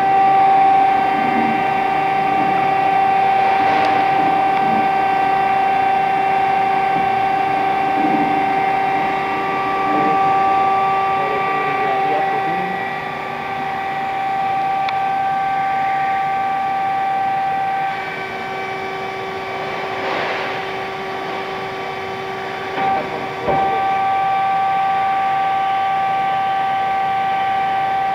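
Machinery running with a steady whine: one firm tone with several overtones. The tone pattern shifts slightly about two-thirds of the way through, with a brief dip and a click shortly after.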